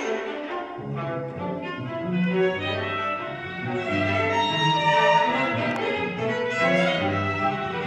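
A string quartet of two violins, viola and cello playing contemporary classical music, with overlapping held bowed notes and a low cello line underneath.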